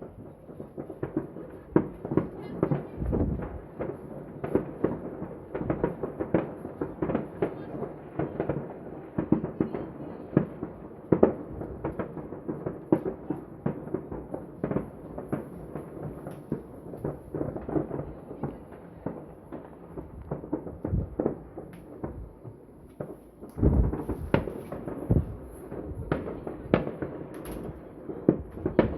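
Fireworks going off without a break, a dense run of bangs and crackling, with a cluster of heavier booms near the end.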